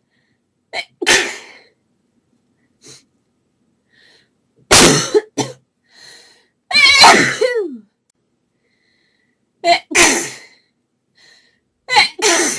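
A woman sneezing over and over in a desperate sneezing fit: about five loud sneezes a couple of seconds apart, several of them preceded by a short catch of breath.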